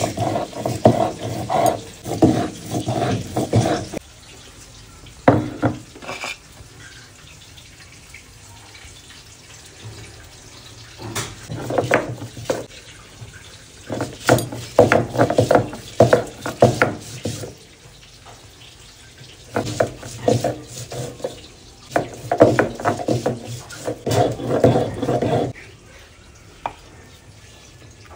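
Stone roller grinding wet spices, garlic and ginger on a shil-nora grinding slab: rough stone-on-stone scraping in bursts of rapid back-and-forth strokes, with pauses between the bursts.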